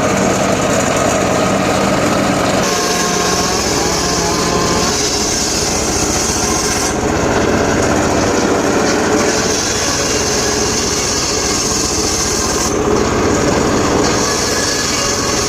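Engine-driven saw running steadily and cutting mahogany wood, with a higher cutting hiss coming in three times for a few seconds each.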